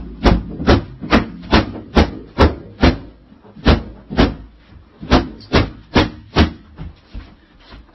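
Repeated sharp whacks, about two to three a second with a short gap about three seconds in: a large yellow-and-black object being beaten again and again.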